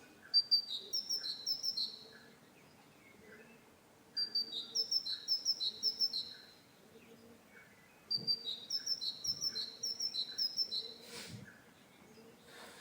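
Great tit singing: three phrases of its repeated two-note song, each a quick run of alternating higher and lower notes lasting about two to three seconds, with pauses of about two seconds between them.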